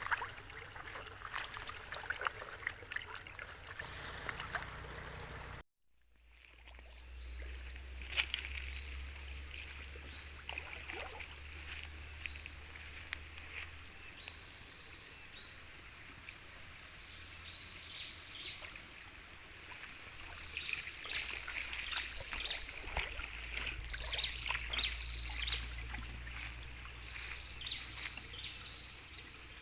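Outdoor ambience of shallow water being waded and splashed, with a low steady rumble, and in the second half a bird chirping repeatedly in short calls. A brief dropout about a fifth of the way in.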